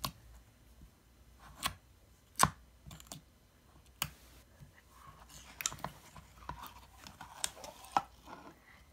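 Fingers poking and pressing clear glitter slime in a plastic jar: scattered small sticky clicks and pops, coming more often in the second half as the slime is worked and lifted out of the jar.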